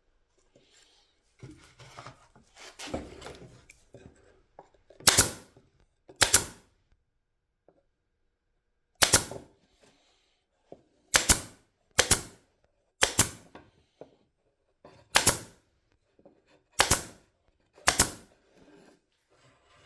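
A series of about nine sharp, loud taps or knocks on a workpiece, spaced unevenly a second or two apart, after a few seconds of rustling handling noise.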